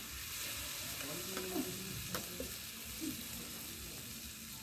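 Spiced bhaji gravy sizzling in hot oil in a pan, stirred with a metal spatula, with a couple of sharp clicks of the spatula against the pan about one and a half and two seconds in.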